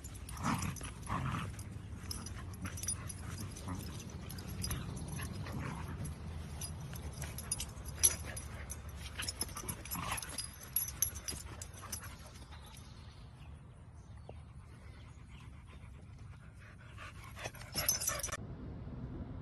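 Two dogs play-fighting, with yips, barks and whimpers over scuffling. The sounds come thick and irregular at first, grow quieter about two-thirds of the way through, then flare up again briefly near the end.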